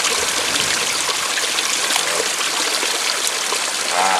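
Steady running and trickling water, an even rush with small splashy flecks. A short pitched sound rises over it near the end.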